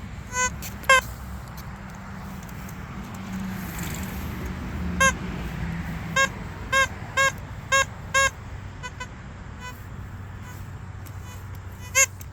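Metal detector target tones: short, buzzy beeps that bend slightly up and down in pitch, coming in clusters as the coil passes over buried metal. A low rumble swells and fades in the middle.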